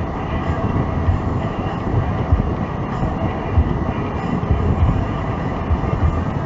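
Car driving, heard inside the cabin: a steady low rumble of tyres and engine with irregular low thumps from the road.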